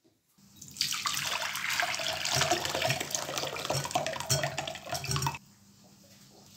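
Water poured from a glass bowl through a wire-mesh strainer into a glass bowl below, splashing, as soaked potato cubes drop into the sieve. The pour starts about half a second in and stops about five seconds in.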